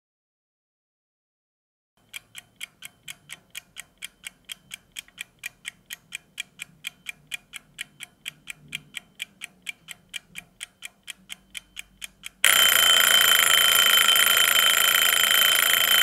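Mechanical wind-up kitchen timer ticking evenly, about four ticks a second, starting about two seconds in. As it runs down to zero, its bell rings loudly and without a break for the last few seconds.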